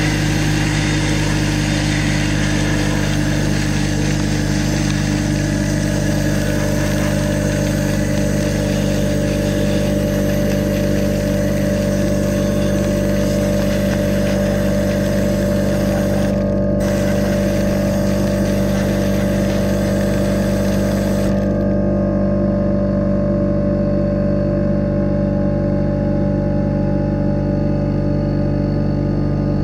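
Electric air compressor running with a steady motor hum, under the high hiss of air and abrasive blasting from a sandblaster gun. The hiss cuts out briefly about 16 seconds in and stops about 21 seconds in, while the compressor keeps running.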